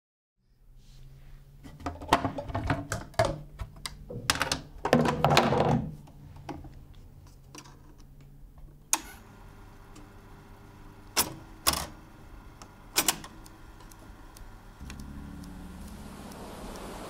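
Magnetophon 104 reel-to-reel tape recorder being handled. A run of clattering mechanical clicks and knocks is followed by four sharp, separate clicks of its controls, over a low steady hum. A hiss swells near the end.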